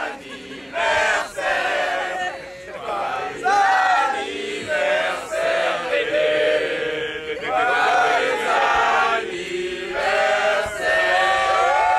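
A group of voices singing a birthday song together, in phrases with short breaks.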